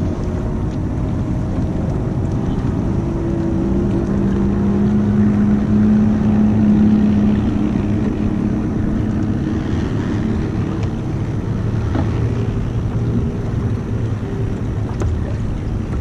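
Bass boat's Mercury 300XS outboard running at low speed, with wind on the microphone. An engine tone swells and grows louder about four to seven seconds in, then eases back.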